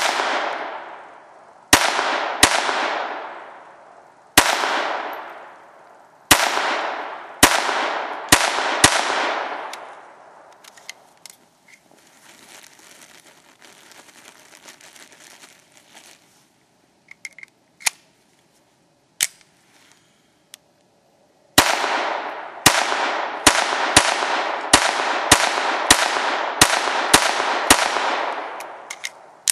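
Ruger 22/45 Mark III .22 LR semi-automatic pistol firing strings of shots. About eight sharp cracks come over the first nine seconds. After a pause with a few small clicks, a quicker string of about a dozen shots follows. Each crack trails a long echo that dies away.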